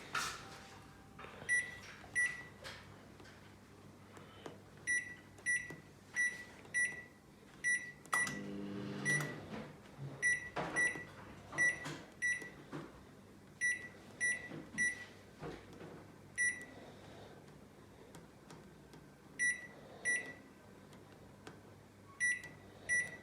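LG microwave oven beeping: many short high-pitched beeps about 0.6 s apart, in runs of one to seven with pauses between them. Under the beeps is a faint steady hum, with a brief low rumble about eight seconds in.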